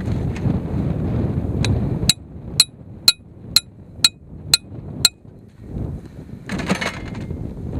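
A small hammer striking a T-handled steel stake to drive it into the ground: seven sharp, ringing metal-on-metal blows about two a second, after a rumble of wind on the microphone.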